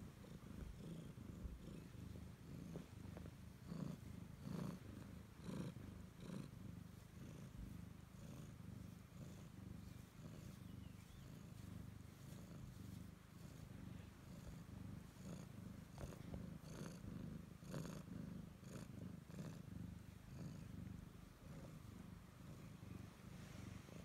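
Siamese cat purring steadily and close up as it is scratched on the neck, with a few light rustles now and then.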